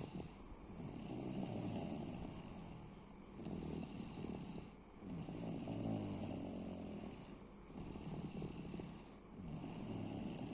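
A woman snoring in her sleep, a rough snore with each breath that swells and fades every two to three seconds.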